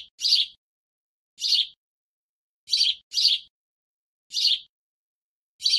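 Small bird chirping: short high-pitched chirps in an evenly repeating pattern, a single chirp then a pair, about six in all.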